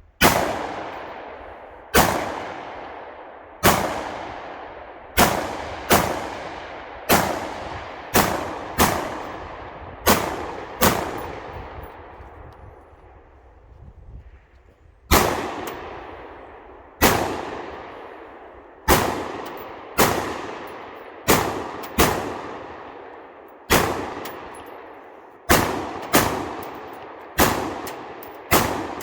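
Rifle shots fired one at a time, about one every one to two seconds, each followed by a long echoing tail. Firing pauses for about four seconds partway through, then resumes at the same pace.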